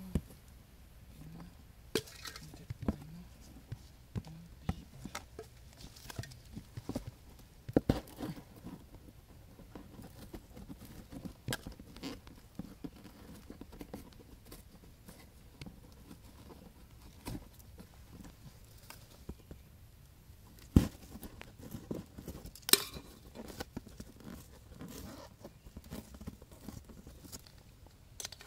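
Irregular taps, knocks and tearing of a cardboard carton as holes are cut into it by hand, with a few sharper knocks standing out.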